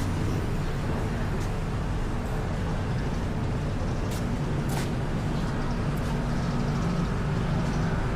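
Street traffic with a vehicle engine running close by: a steady low hum with a few faint clicks.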